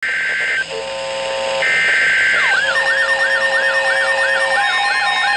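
Emergency Alert System tones opening a severe thunderstorm warning. First come two short bursts of high, paired data tones, with a chord of lower tones between them. Then about two and a half seconds in, a wailing alert tone starts, sweeping up and down about three times a second over a held steady tone.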